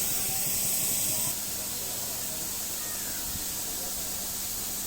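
Steady high-pitched hiss that drops slightly in level about a second and a half in, with faint distant voices.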